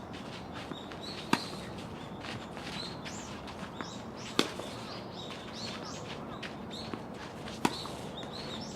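Tennis balls struck by a racket three times, about three seconds apart, each hit preceded by a fainter knock of the ball bouncing. Birds chirp throughout.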